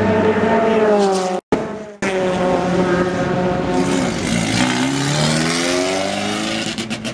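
Race car engines in the pit lane. One engine's note falls away over the first second and a half as a car runs past. After a break, a touring car's engine runs, dips, then climbs in pitch as it accelerates out of the pits.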